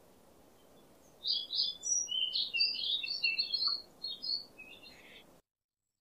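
White-rumped shama song: a fast run of varied high whistles and chattering notes starts about a second in and lasts about three seconds over a faint hiss. All sound cuts off abruptly near the end.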